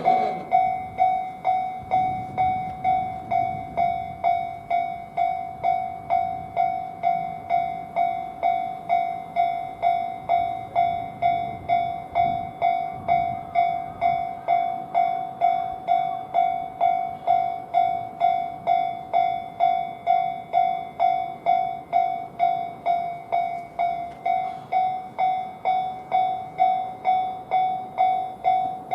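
Japanese railway level-crossing warning alarm ringing its "kan-kan" tone at a steady beat of just under two strikes a second, signalling that a train is approaching and the barriers are down.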